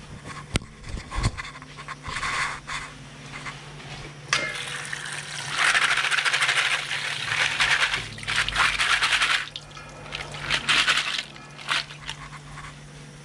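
Tap water running into a metal bowl of undulated surf clams, with the shells clinking as hands stir them. It starts about four seconds in and runs until about nine and a half seconds, then comes again in short runs near eleven seconds. A few knocks come before it.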